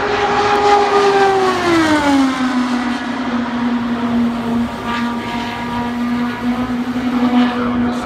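A single IndyCar's 2.2-litre twin-turbo V6 passing at full qualifying speed: its engine note drops sharply in pitch about two seconds in as the car goes by. It then holds a steady lower note as the car runs away down the straight.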